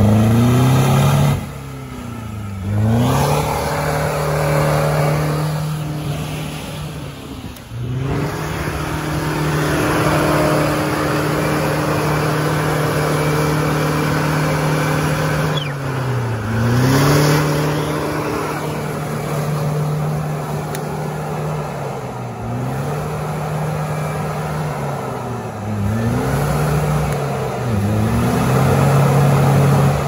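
UAZ off-roader's engine revving hard under load in a muddy rut. The revs drop sharply and climb back again several times as the throttle is lifted and reapplied.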